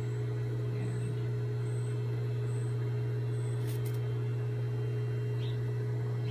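Steady low electrical hum with a faint higher tone, unchanging throughout, and a single light click about four seconds in.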